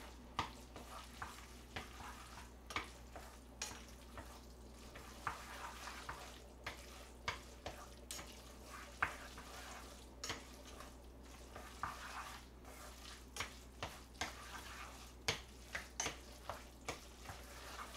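Chewy jjolmyeon noodles being mixed by hand with chili sauce in a small pot: soft wet stirring with frequent irregular clicks and taps of the utensil against the pot.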